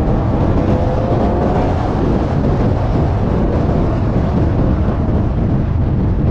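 Steady wind rush on an outside-mounted camera at highway speed, over the low drone of a Camaro SS's V8 exhaust cruising.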